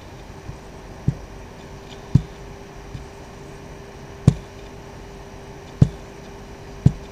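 A series of sharp, short knocks or taps at irregular intervals, roughly one a second, the loudest about four seconds in, over a steady faint hum.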